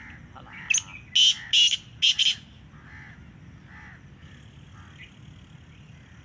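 Black francolin calling: a loud, grating phrase of about four short notes between one and two and a half seconds in. Softer, more distant bird calls follow.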